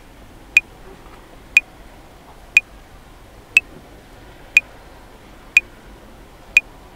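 Metronome clicking at 60 bpm, one sharp click a second, seven clicks, the last near the end, over faint background noise.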